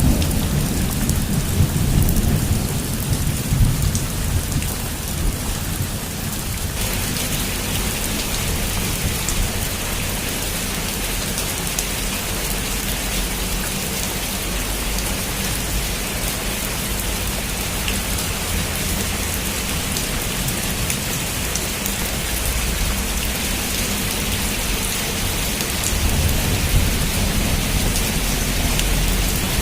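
Heavy rain pouring steadily on a roof, an even hiss. Low rolling thunder rumbles under it for the first few seconds and again near the end.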